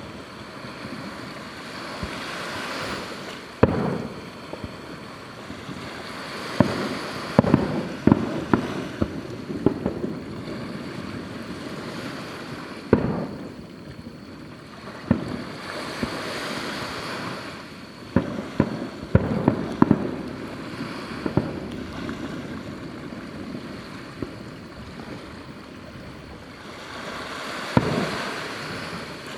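Fireworks display: aerial shells bursting in a string of sharp bangs, some close together, with a hissing, crackling rush between them that swells and fades.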